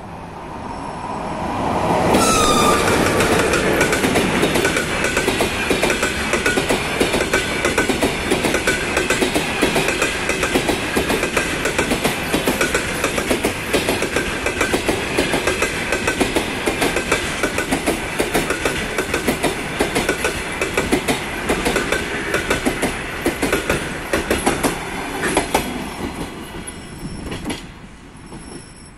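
An EP1M electric locomotive passing close by about two seconds in, with a brief falling tone, followed by a long train of passenger coaches rolling past. The wheels click rapidly over the rail joints under a steady high ringing. The sound drops off near the end as the last coach goes by.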